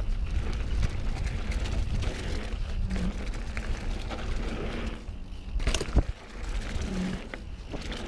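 Mountain bike descending a dirt singletrack at speed: a steady rumble of tyres and frame over the trail, with a sharp knock near six seconds. A camera gimbal's vibrating buzz comes through briefly about three and seven seconds in.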